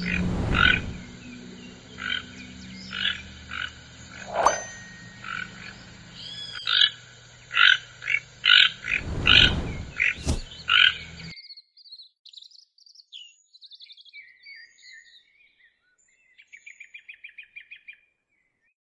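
Keel-billed toucan giving a series of short, dry, frog-like croaks, about one or two a second, with a couple of low thuds among them. About eleven seconds in the recording changes abruptly to fainter, higher bird chirps and a fast trill near the end.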